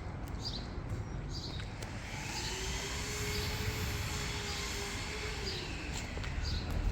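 A vehicle passing by: its hum and rushing noise swell from about two seconds in, and the hum drops in pitch as it goes past and fades. A short high chirp, likely a bird's, repeats about twice a second.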